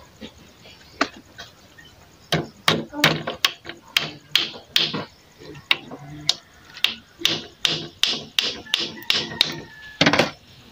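Hammer driving a nail into a wooden stake: a run of about twenty sharp blows, roughly two a second, starting about two seconds in.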